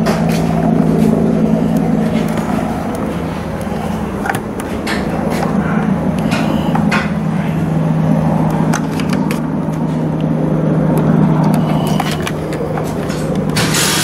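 Steady mechanical drone like an idling engine, with light clicks and rustles of wires and plastic crimp connectors being handled, and a short louder rustle at the very end.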